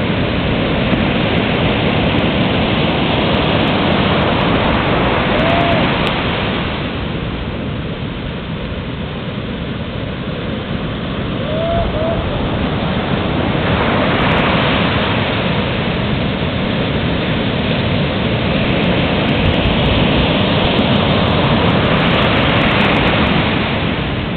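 Ocean surf: a loud, steady rush of breaking waves. It eases for several seconds and then builds again.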